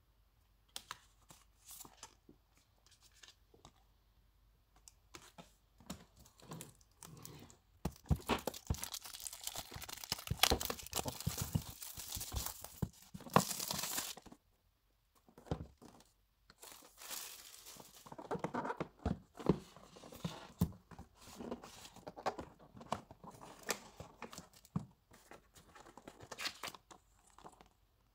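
Card and cardboard being handled: stiff paper inserts rustling and sliding and a cardboard box being shifted and opened, with the densest, loudest rustling for several seconds in the middle.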